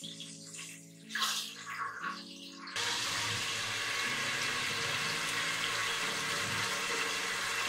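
Hot cooking oil in a nonstick pot sizzling with a steady hiss that sets in abruptly about three seconds in, just after salt has been sprinkled into it. Soft background music before that.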